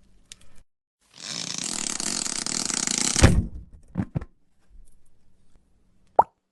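Cartoon-style sound effects: a hissing rush of about two seconds that ends in a thump, two quick knocks, then a short pitched squeak near the end.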